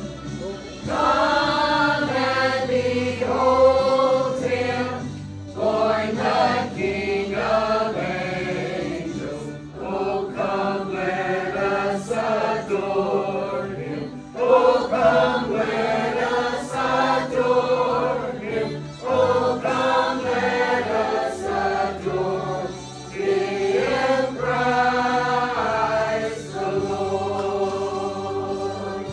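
Church choir singing with musical accompaniment, in phrases a few seconds long with short breaks between them.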